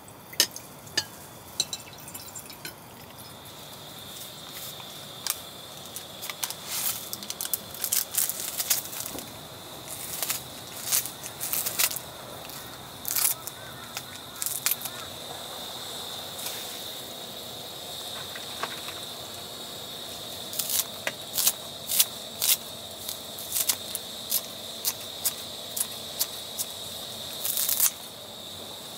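Camp cooking at a stainless steel pot: water poured in near the start, then a long run of sharp snips and clicks from kitchen scissors cutting green chili and chives into the pot. A faint steady high tone runs underneath from a few seconds in.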